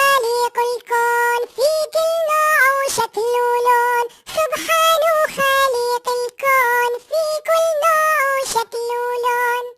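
High-pitched singing voice of a children's song, holding steady notes with short glides between them, phrase after phrase with brief breaks.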